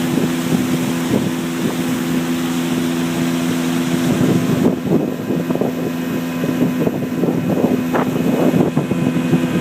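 Motorboat engine running at a steady speed, with wind on the microphone and, from about halfway, uneven rough gusts or splashes over it.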